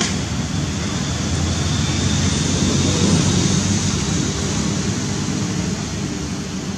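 Steady rushing of a muddy, flowing stream, with monkeys splashing in the water and the noise swelling a little about halfway through.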